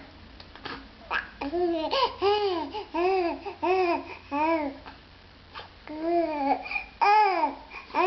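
Baby babbling: a run of short rising-and-falling 'ah' sounds, about two a second, with a short pause midway.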